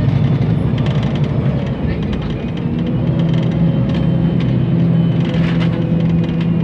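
Engine of an LPG-fuelled MAN NL 273 T3 city bus idling at a stop, a steady low hum that settles into a more even drone about two and a half seconds in.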